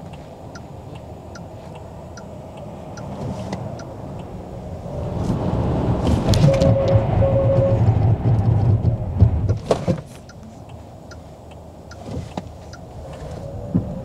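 Cabin noise of a Nio ET7 electric sedan on soft winter tyres: low road and tyre rumble that builds as the car gathers speed, then drops off sharply about ten seconds in as the car brakes hard. Faint regular ticks sound throughout.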